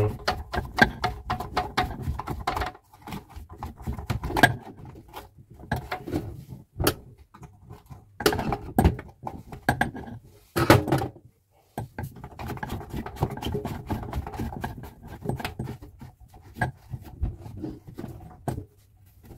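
Hand-tightening a kitchen mixer tap's mounting plate and nut from under the sink: irregular clicks, taps and small rattles of parts being handled, with a few louder knocks around eight and eleven seconds in.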